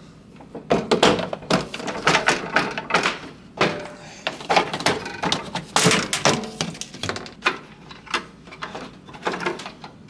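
Hands working plastic parts and a small piece of wood into place: a run of irregular knocks, clicks and rattles.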